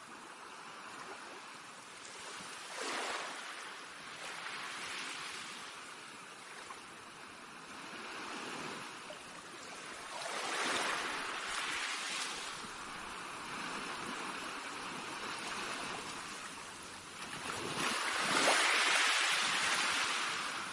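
A rushing noise that swells and fades in several surges, the loudest near the end.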